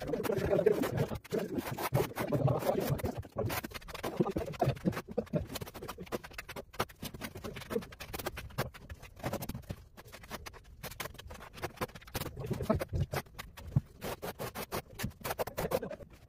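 Steel trowel scraping and spreading tile adhesive across a ceiling in repeated strokes, with sharp scratches and clicks from the trowel edge. It is busiest in the first few seconds.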